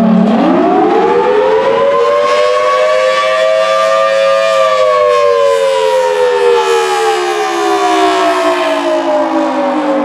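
Federal Signal Thunderbolt 1000T rotating siren sounding the attack signal. The wail rises quickly from a low tone to its peak about four and a half seconds in, then slides slowly back down.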